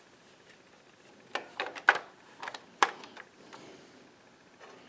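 Several short, light clicks and knocks over about two seconds from the plastic clamshell handle cover of a miter saw being fitted back into place over the cord's strain relief.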